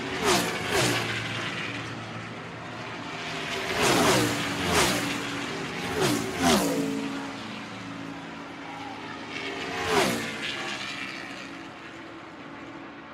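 NASCAR stock cars' V8 engines at full speed passing by one after another, about seven times in clusters, each engine note dropping in pitch as the car goes past.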